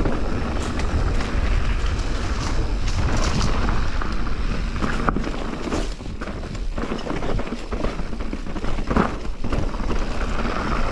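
Wind buffeting the microphone over the rolling noise of a mountain bike riding a dirt trail, with a few sharp knocks and rattles from bumps.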